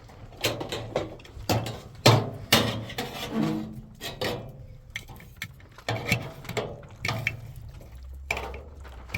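A series of irregular knocks and clattering impacts, like hard objects being handled and struck, about a dozen over several seconds, the loudest about two seconds in.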